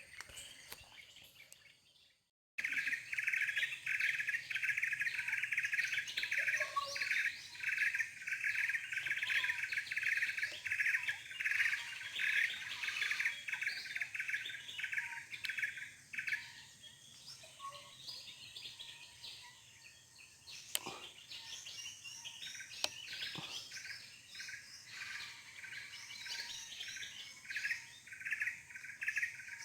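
A dense chorus of many birds chirping rapidly and overlapping in a fruiting banyan tree. It thins out about halfway through and builds up again near the end, with a few sharp clicks.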